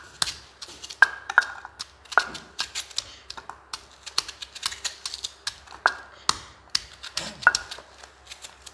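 Kitchen knife slicing through a large red onion held in the hand: an irregular run of crisp cuts and sharp clicks, several a second, some ringing briefly.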